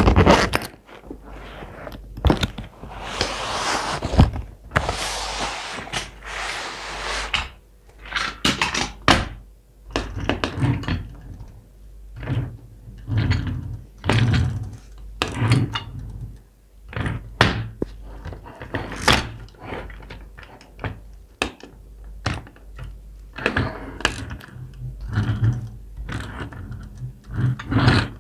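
Toy car packaging being opened by hand: a long stretch of crinkling, tearing packaging a few seconds in, then many short clicks and knocks and some dull thunks as the boxes and toy cars are handled.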